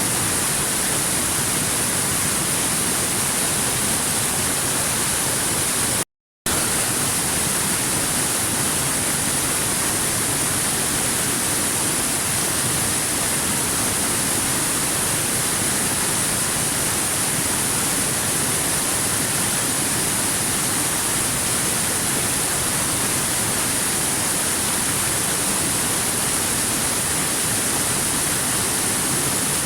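Waterfall: a steady, even rush of falling water with no changes in it, which cuts out completely for a split second about six seconds in.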